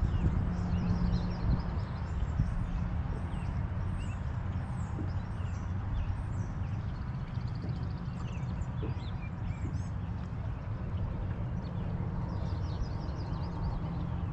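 Several birds chirping and twittering, many short rising and falling notes, over a steady low hum that is most likely the bass boat's bow-mounted electric trolling motor, a little stronger near the start and again near the end.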